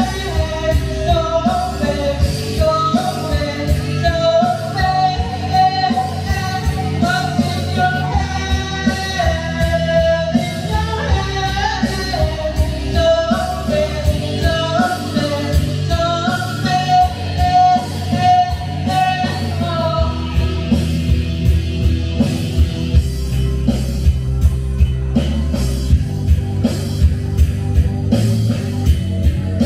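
Rock song with a singing voice over guitar and drums; the singing stops about two-thirds of the way through and the instruments play on with a steady beat.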